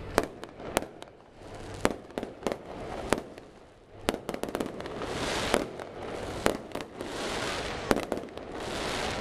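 Fireworks exploding in the sky: a string of sharp bangs at uneven intervals, a quick run of pops about four seconds in, and a hiss filling in through the second half.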